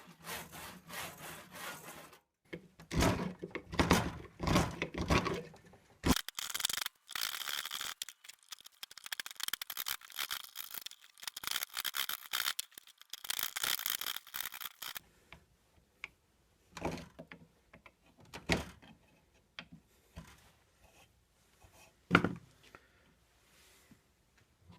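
Handsaw fitted with a clamped metal depth stop, cutting kerfs into a dry wooden dowel in back-and-forth strokes. The strokes come in short runs with pauses, then a longer stretch of steady rasping. Near the end there are a few scattered knocks of wood.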